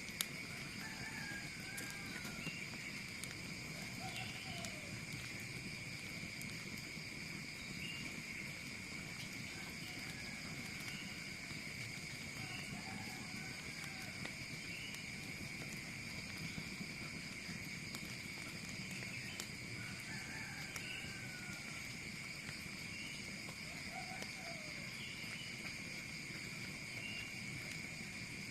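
Steady outdoor insect chorus, a continuous high shrill drone, with short scattered bird chirps and whistles every few seconds.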